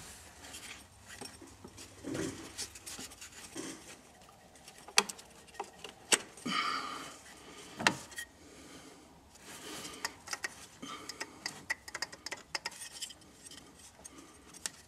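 Scattered metallic clicks, taps and rubbing as a ratchet works the tensioner and a new serpentine belt is seated on the pulleys of an Audi A8's belt drive. There are a few sharper knocks about five to eight seconds in, then a run of light ticks.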